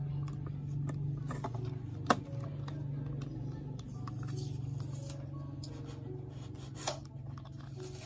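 Foam ear cushion being stretched and worked over the plastic ear cup of an on-ear headset: soft rubbing and scraping with small plastic ticks, and a sharp click about two seconds in and another near seven seconds.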